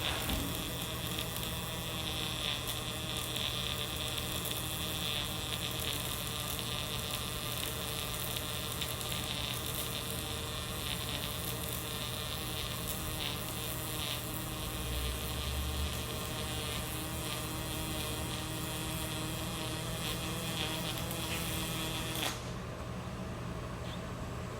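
Pulsed-spray MIG welding arc from a Lincoln S350 power source with .045 ER70S-6 wire in 75% argon / 25% CO2, buzzing steadily as it lays fill and cap passes around 6-inch steel pipe. The arc cuts off suddenly near the end, leaving a steady electrical hum.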